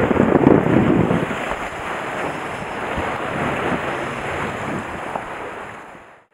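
Sea waves washing and breaking against concrete breakwater tetrapods, with headwind buffeting the microphone, gustiest in the first second or so. The sound fades away near the end.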